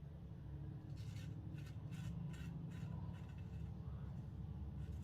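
Maritime BrushCo shaving brush working Lather Bros soap lather, a run of short soft brushing strokes about one to two and a half seconds in, over a low steady hum.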